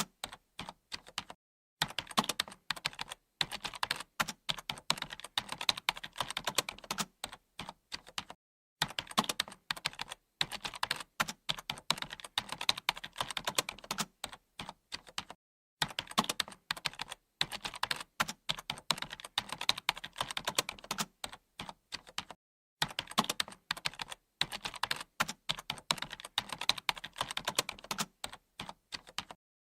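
Computer keyboard typing: fast, continuous runs of key clicks, broken by brief pauses every few seconds.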